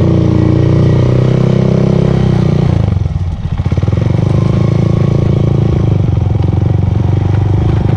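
Honda Monkey's single-cylinder engine pulling away under throttle. It dips briefly about three seconds in, then runs steadily as the bike rides along.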